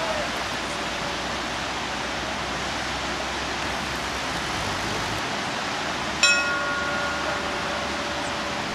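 Steady rushing of a fast white-water river. About six seconds in, a bell is struck once and rings on, slowly fading.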